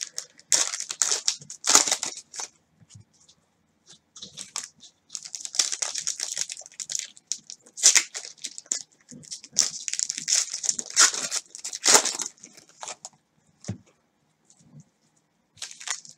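Trading cards being flipped through and slid against one another by black-gloved hands: a run of dry rustling swishes with short pauses between them.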